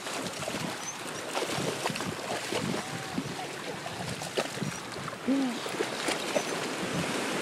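Shallow ocean surf washing and swirling around the waders, with wind buffeting the microphone.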